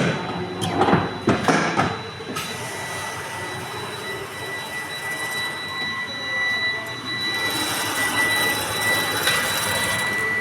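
Several sharp knocks, then an electric motor starts running with a steady high whine. It grows louder and more hissing about three quarters of the way through.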